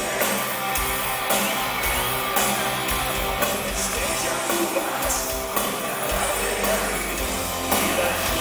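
Live rock band playing: electric guitar and full band over a steady beat.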